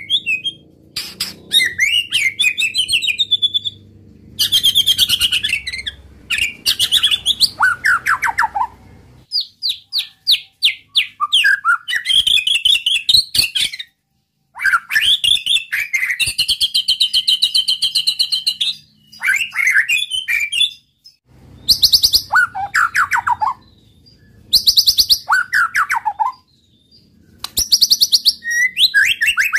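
White-rumped shama singing: phrases a second or two long of rapid trills, fast repeated notes and down-slurred whistles, with short pauses between.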